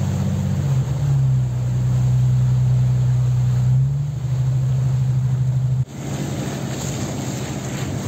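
Motorboat engine running steadily with a low, even hum. It cuts off abruptly near the end, and wind and sea wash take over.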